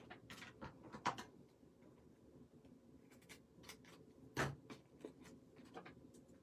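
Soft rustles and taps of cardstock and paper layers being picked up and handled on a craft table, with two sharper clicks, about a second in and about four and a half seconds in.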